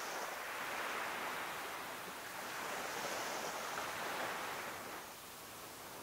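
Surf washing onto a sandy beach: a steady rushing hiss that eases a little about five seconds in.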